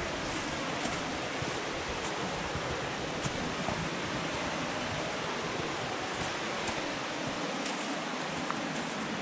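Steady rushing of the Caraș river flowing over rocks in the gorge below the path. Now and then there are faint short crackles of dry leaves underfoot.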